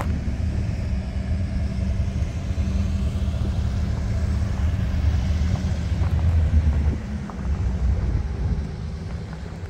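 Cars and pickup trucks driving across a railroad grade crossing, over a steady low engine rumble from idling diesel locomotives. The rumble eases a little about seven seconds in.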